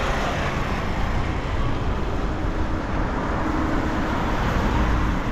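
Steady city road traffic on wet streets: an even hiss of tyres and rain over a low rumble of passing engines, with a faint engine hum around the middle.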